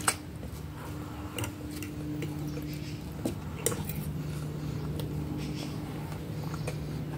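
A metal fork clinking and scraping on a ceramic plate of spaghetti, a few sharp clicks among fainter ticks, with close-up chewing, over a steady low hum.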